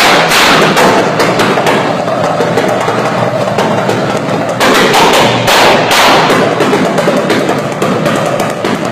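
Subaru Impreza rally car's exhaust popping and banging in rapid, irregular succession, louder about five seconds in. Such bangs are typical of a rally car's anti-lag system.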